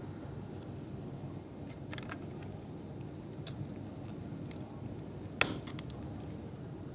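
Small clicks and taps from handling laptop parts during a RAM swap, with one sharp, loud snap about five and a half seconds in.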